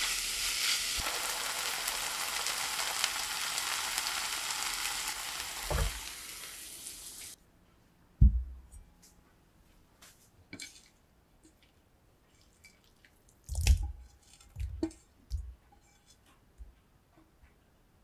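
Chopped kimchi sizzling as it is stir-fried in a nonstick frying pan with a silicone spatula. The sizzle cuts off suddenly after about seven seconds, and a few scattered light knocks and taps follow.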